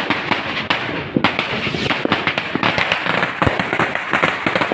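Fireworks and firecrackers going off all around, a dense, irregular string of overlapping bangs and cracks several a second.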